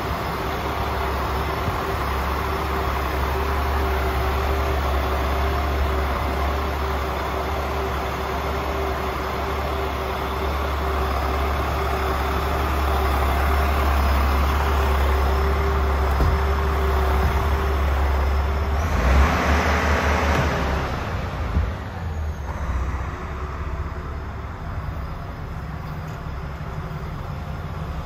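A DAF CF400 tractor unit's PACCAR six-cylinder diesel idling with a steady low drone. About 19 seconds in a rush of noise covers it for a couple of seconds, after which it is quieter.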